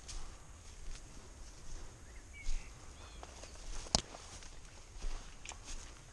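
Footsteps crunching through dry leaf litter and undergrowth, with twigs and branches rustling and scraping against the walker. A sharp snap about four seconds in.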